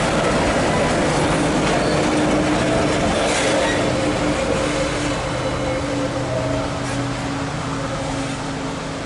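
Empty freight wagons of a train rolling past on the rails, the wheels and cars running steadily. The last car goes by about four seconds in, and the sound fades as the train draws away.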